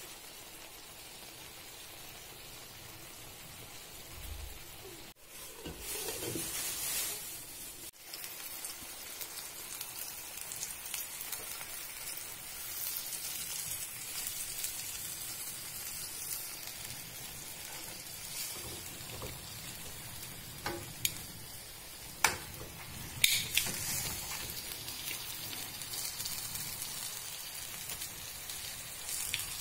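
Marinated chicken leg pieces frying in oil in a large frying pan: a steady sizzle and crackle, with a few sharp clicks about two-thirds of the way through.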